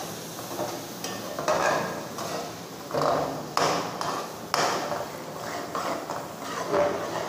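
A metal slotted spoon stirring and scraping around an aluminium pot in irregular strokes, over the sizzle of an onion and spice masala cooking in oil.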